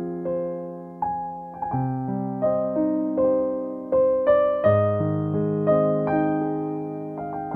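Background piano music: a gentle melody of notes and chords struck about twice a second, each dying away.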